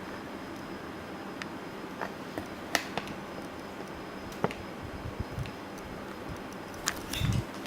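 Panasonic CS-S10PKP inverter air conditioner running with a steady whoosh and a faint high tone, broken by scattered sharp clicks, the loudest about three seconds in, halfway through and near the end.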